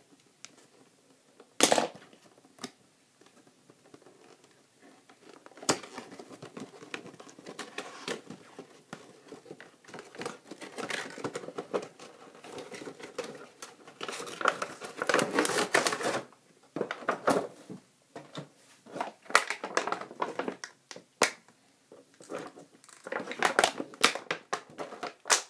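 Action-figure packaging being opened by hand: scissors cutting and cardboard box flaps being pulled, then a clear plastic bag crinkling and rustling as the figure is worked free. The clicks and crackles come irregularly and are loudest in the second half.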